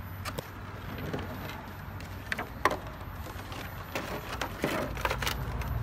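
Hard plastic figure parts clicking and knocking as they are handled and set down on a table, a few sharp taps scattered through, over a low steady hum that grows louder near the end.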